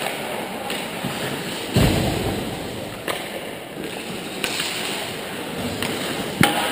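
Pickup ice hockey on an indoor rink: skates scraping the ice under a steady scratchy hiss, sharp clacks of sticks and puck a few times, and one heavy thud about two seconds in.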